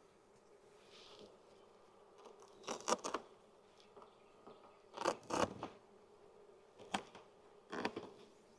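Agitated honeybees from an opened nuc buzzing steadily, with several short clusters of knocks and scrapes, four groups in all, louder than the buzzing.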